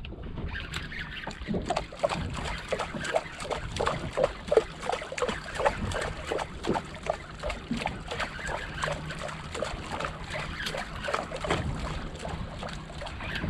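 Water slapping and sloshing against the hull of a small skiff in irregular knocks, several a second, while a spinning reel and bent rod are worked against a hooked fish.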